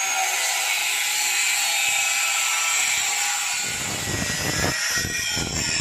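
Electric angle grinder with a cutting disc cutting rusted steel sheet: a steady high whine over a grinding hiss. About three and a half seconds in, the disc is grinding into the scooter's rusted steel body shell, and the sound turns rougher with an uneven low rumble under the whine.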